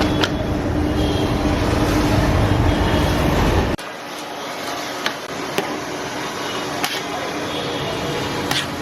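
Street-stall cooking noise: a loud, steady roaring rumble with a low hum, which cuts off abruptly about four seconds in. After that comes a quieter hiss with a few sharp clicks.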